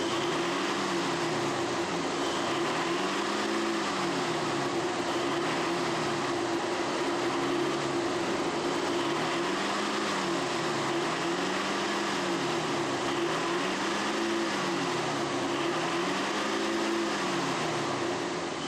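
Truck engine running on white-gasoline vapor drawn in through a homemade intake, with a steady hum and a lower note that rises and falls over and over, about every second and a half to two seconds.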